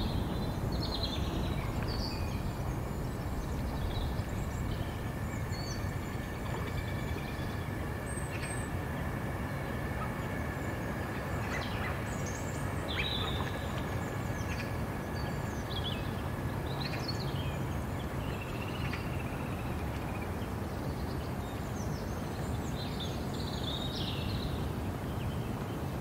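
Many short bird calls and chirps scattered throughout, over a steady low rumble, with a thin steady high tone for several seconds in the middle.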